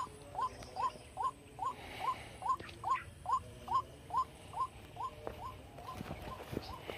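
White-breasted waterhen calls played from a small Bluetooth speaker as a hunting lure: short rising notes repeated evenly, about two and a half a second, growing fainter near the end.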